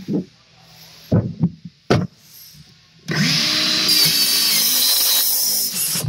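Electric sliding miter saw cutting a wooden board. A few knocks of the board being set against the fence come first, then about three seconds in the saw starts and runs through the cut for about three seconds.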